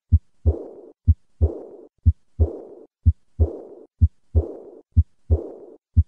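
Heart sounds of aortic regurgitation heard by stethoscope, about one beat a second. Each beat is a short first-sound thump, then the second heart sound followed at once by an early diastolic murmur that fades away (decrescendo).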